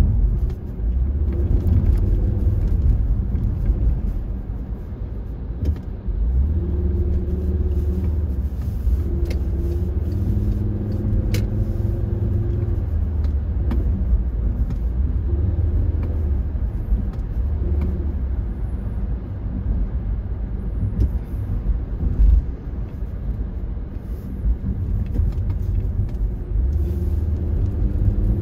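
Road and engine noise inside the cabin of a moving car: a steady low rumble with a faint hum that comes and goes and rises a little near the end as the car picks up speed.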